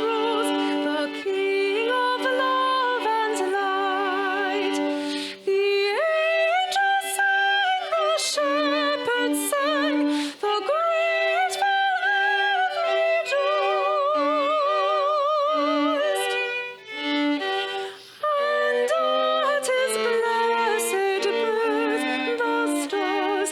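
Worship band playing a slow Christmas song: a melody with strong vibrato over held chords, with brief breaks between phrases about 5 s, 10 s and 17 s in.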